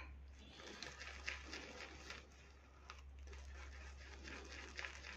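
Shaving brush swirling soap lather in a small bowl: faint, soft wet crackling and ticking while the lather is being built up.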